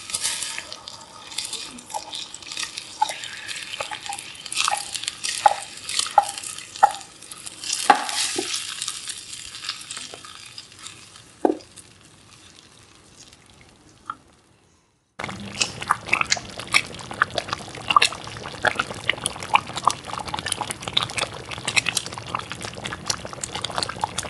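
Broken raw rice poured into boiling tamarind water in a stainless steel pot and stirred with a wooden spatula, with scattered knocks of wood on steel. The sound fades and drops out for a moment about fifteen seconds in, then steady bubbling and stirring resume with a denser crackle.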